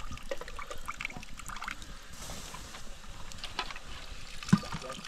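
Water trickling and splashing, with scattered small clinks and one sharp knock about four and a half seconds in.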